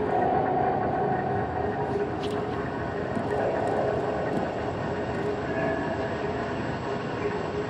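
Steady rumbling vehicle noise with a few faint humming tones.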